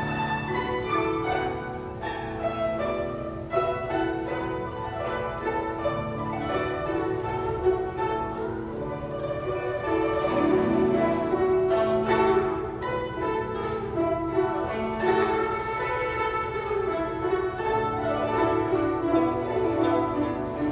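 Guzheng ensemble playing: many Chinese plucked zithers sounding a melody in a steady flow of short plucked notes.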